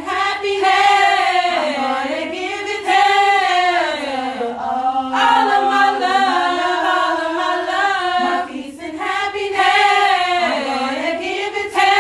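Women singing a cappella, holding long wavering notes, with no instruments.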